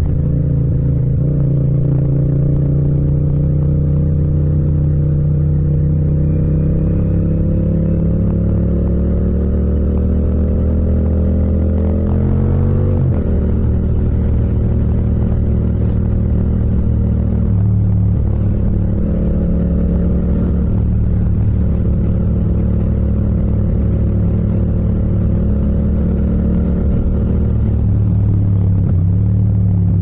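Yamaha MT-07 (FZ-07) 689 cc parallel-twin engine running under way. Its note rises slowly for about twelve seconds, drops abruptly about halfway through, then holds a fairly steady cruising note with small throttle changes.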